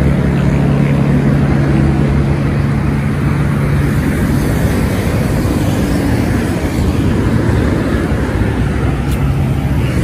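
Highway traffic passing close by: a vehicle's engine hum fades away over the first few seconds, leaving a steady rush of road noise.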